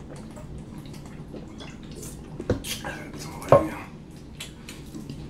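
Wet mouth sounds of drinking and eating: sips and swallows from a soda can and a drink bottle and small lip clicks, with two sharper smacks about two and a half and three and a half seconds in, the second the loudest.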